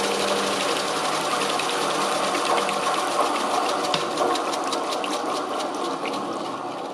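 Steady rush and splash of petrol flowing through the Pullmax P13's gearbox as it is flushed clean, with fine ticking throughout, fading near the end.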